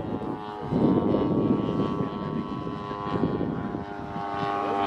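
Radio-controlled Grumman F6F Hellcat model airplane flying overhead, its engine and propeller running at a steady pitch and growing louder towards the end.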